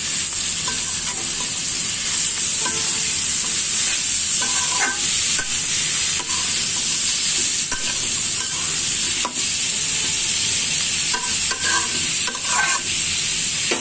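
Potatoes and shredded cabbage sizzling in hot oil in a karai, with a steady hiss and a spatula scraping and clicking against the pan as the vegetables are stirred.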